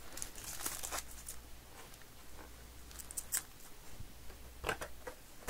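A cardboard card box and the foil-wrapped card packs inside it being handled. There is a brief crinkling rustle in the first second, then a few light clicks and taps.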